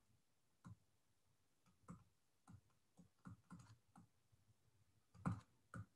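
Faint, irregular clicks and taps of a stylus on a tablet while handwriting, about ten of them, the loudest a little after five seconds in.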